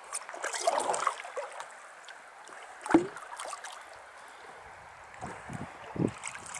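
Paddle strokes splashing in river water, coming in bunches, with one sharper, louder splash about three seconds in.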